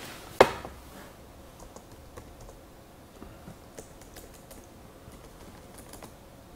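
Typing on a computer keyboard: light, irregular keystrokes, with one sharper click about half a second in.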